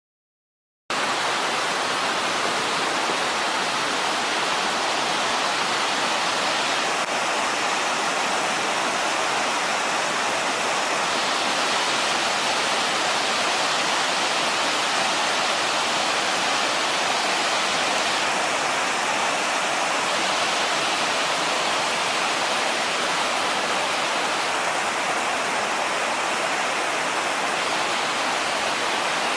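River waterfall: a steady, full rush of falling water that cuts in about a second in.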